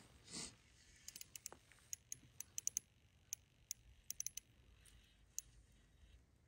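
A short rustle at the start, then faint, irregular light clicks and ticks scattered through the rest.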